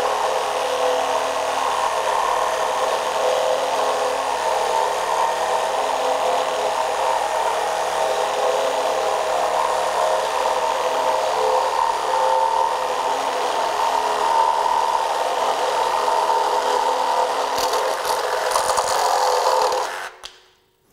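Metabo HPT CR18DAQ4 18-volt cordless one-handed reciprocating saw cutting through a wooden board, running steadily and then stopping suddenly near the end as the cut is finished.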